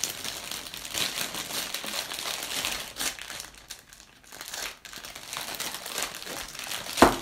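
Plastic wrapping crinkling and rustling as fruit lollipops are taken from a clear plastic bag and unwrapped, easing off briefly around the middle. A single sharp click near the end.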